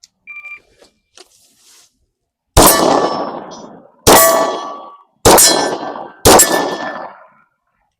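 Shot-timer beep, then about two seconds later four shots from a Glock 45 9mm pistol at steel targets, spaced roughly a second to a second and a half apart. The steel rings after each hit and dies away over about a second.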